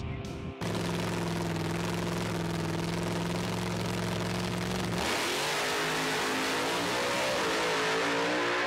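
Drag race car engine running at a steady note at the starting line, then a hard launch: the car pulls away down the strip with its note climbing in steps through the gears over heavy exhaust noise. A snatch of guitar music cuts off just before the engine is heard.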